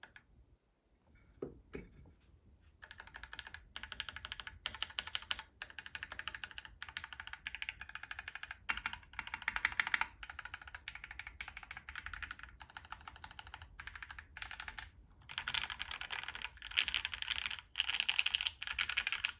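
Fast typing on a custom mechanical keyboard, a Monokei Kei R2 with an aluminium plate and Thic Thock Marshmallow switches under PBT keycaps: a steady run of rapid key strikes. It starts after a brief pause with only a few isolated keystrokes, and gets busier near the end.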